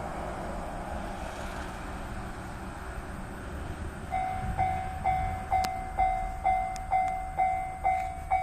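A steady low rumble, then about four seconds in a Japanese level-crossing warning bell starts ringing. Its electronic two-tone ding repeats about twice a second, signalling that a train is approaching.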